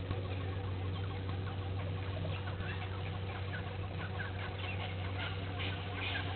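Wild birds calling in a chatter of short, quick notes that builds from about two seconds in and is busiest near the end, over a steady low hum.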